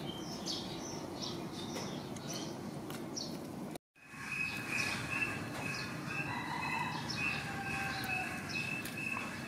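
Birds chirping over steady outdoor background noise; after a short break about four seconds in, a high call pulses evenly about twice a second.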